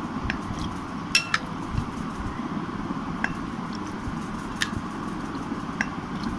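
Serving spoon clinking against a serving bowl and a ceramic plate as curry is ladled out: about half a dozen short, light clinks, the loudest a quick pair a little over a second in.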